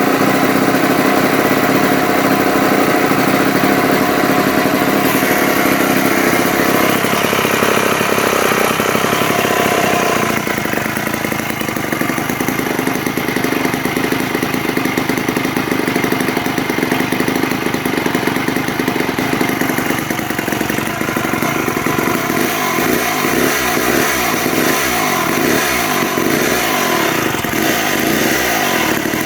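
Wright GS-5020 reciprocating saw running continuously. Its sound changes and drops slightly in level about ten seconds in, and its pitch keeps wavering up and down over the last several seconds.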